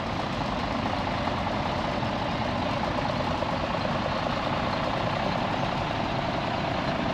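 Engine of a vintage commercial vehicle running steadily nearby.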